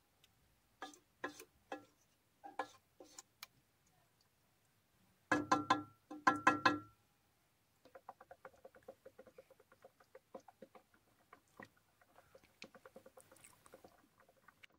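Wooden spatula knocking and scraping against an aluminium pot while stirring spinach curry: a few short, soft knocks. About five seconds in come two louder, short sounds with a steady pitch, then faint rapid ticking.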